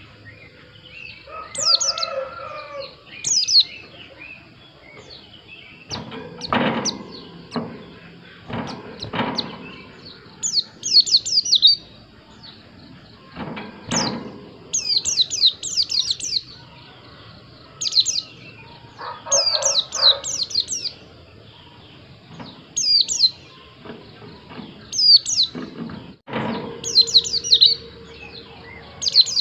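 White-eye (pleci) singing in repeated quick bursts of high, falling chirps. A few lower calls and several dull knocks come in between.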